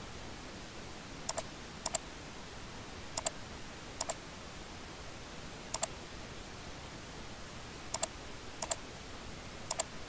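Computer mouse clicked about eight times at irregular intervals, each click a quick pair of ticks as the button is pressed and released, over a steady faint hiss.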